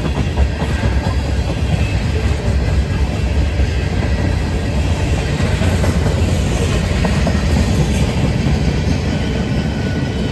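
Mixed freight train's cars rolling past close by: a steady rumble of steel wheels on the rails.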